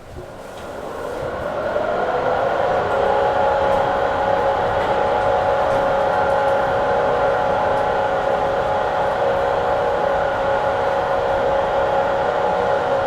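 OTIS Gen2 traction elevator running on an upward trip: a loud whine of several tones rises in pitch over about two seconds as the car speeds up, then holds steady at travel speed. The uploader puts this loud noise down to a bad bearing in the machine.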